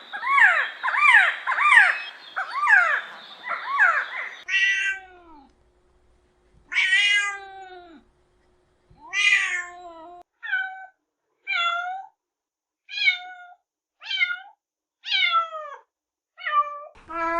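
Cats meowing. For the first four seconds or so there is a fast, overlapping run of short mews, then a series of separate single meows, about one a second toward the end.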